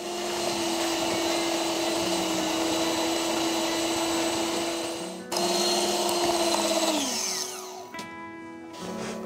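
Electric hand mixer with twin wire beaters running steadily at a high whine while beating cream in a glass bowl. There is a short break about five seconds in, then it runs again and is switched off near the end, its whine falling away as the motor spins down. Light background music plays throughout.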